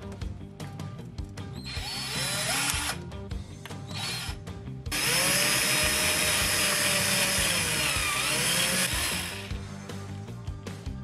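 Power drill boring a twist bit into OSB board. Two short bursts with the motor spinning up come about two and four seconds in, then a steady run of about four seconds whose pitch dips briefly near its end.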